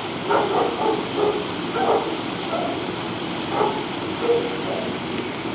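Dog barking: several short barks spread over a few seconds, above a steady background hiss.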